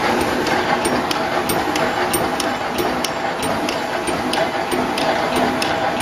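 Automatic welded wire mesh machine (roll type) running, with a steady mechanical hum and a regular sharp clicking about three times a second.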